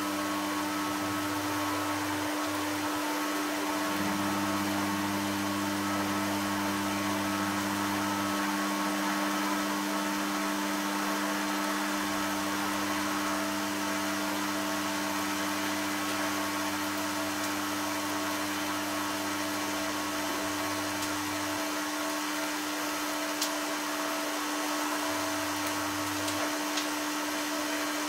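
High-current transformer humming steadily under load as it drives current through graphite blocks and a steel ball, heating the ball red-hot until the graphite burns. The hum is a low, fixed drone over a steady hiss, with a few faint clicks near the end.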